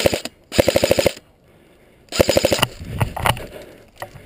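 Airsoft electric gun (AEG) firing three full-auto bursts of rapid, evenly spaced shots, the last about two seconds in, followed by scattered clicks and knocks.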